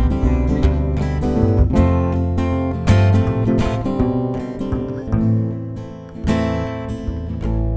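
Live band playing an instrumental passage without singing, led by strummed acoustic guitar.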